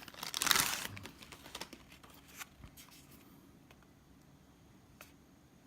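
Clear plastic packaging crinkling as it is handled and opened, loudest in the first second, then a few faint clicks and rustles.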